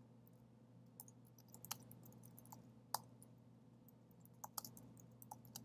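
Faint computer keyboard typing: a dozen or so irregular keystroke clicks as a line of text is typed.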